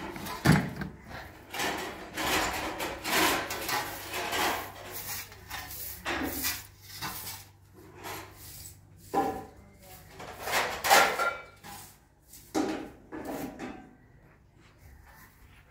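Straw broom and plastic bucket being handled on a tiled floor: a knock about half a second in, then irregular scraping and rubbing strokes every second or so.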